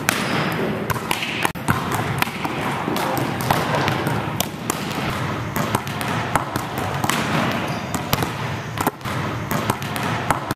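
Volleyballs being spiked and bouncing on a hardwood gym floor: many sharp slaps and thuds scattered throughout, over a steady background noise of the hall.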